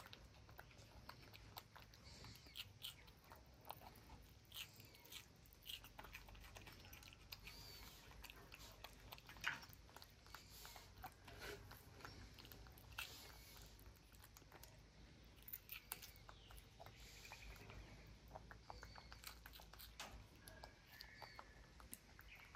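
Young monkeys chewing and biting crisp green vegetables: faint, irregular crunches and small clicks, with one sharper snap about halfway through.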